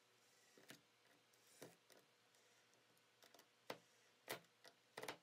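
Near silence, with about eight faint, short clicks at irregular intervals.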